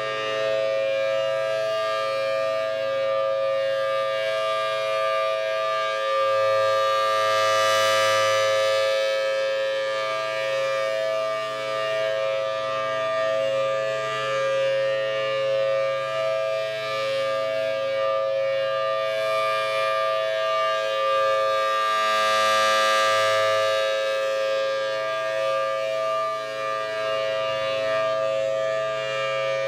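Federal Signal Thunderbolt 1000T civil defense siren sounding its steady alert signal: a held two-note chord from its 5/6-port chopper, without any rise or fall in pitch. It grows louder and fades as the rotating head sweeps past, loudest about 8 and 22 seconds in.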